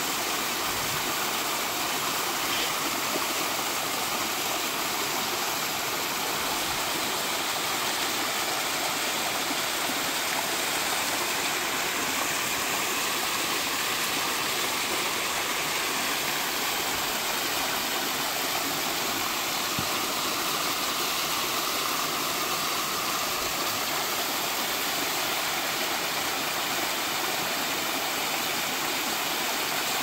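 Mountain stream cascading over rocks in small falls: steady running and splashing water close by.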